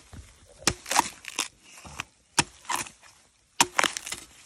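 Machete chopping into a fresh bamboo shoot: about eight sharp, crunching cuts through the shoot and its layered sheaths, irregularly spaced.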